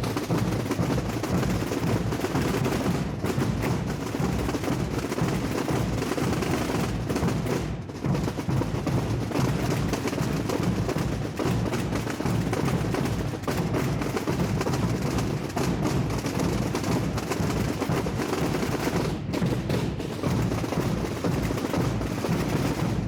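Massed snare drums and bass drums of a Holy Week tamborada, many players beating together in a dense, continuous roll.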